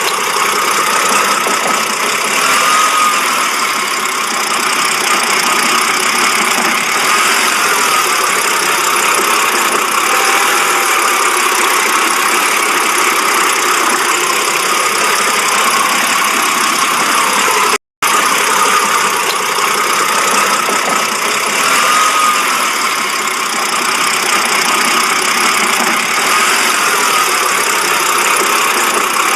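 BMW engine idling roughly, a steady running sound with a faint wavering tone; it drops out for a moment about two-thirds of the way through.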